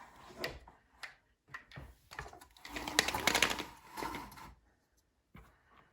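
Window blinds being opened: scattered clicks, then a dense rattling clatter of the slats and cord mechanism for about two seconds in the middle, dying away near the end.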